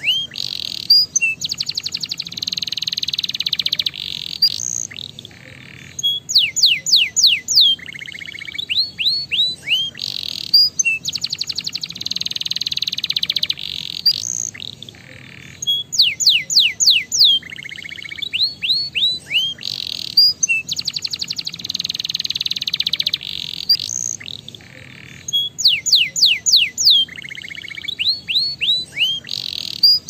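Domestic canary singing: fast rolling trills and quick downward-sweeping whistled notes, in phrases a few seconds long that come round again in much the same order about every ten seconds. The song is a stimulation track meant to set other canaries singing.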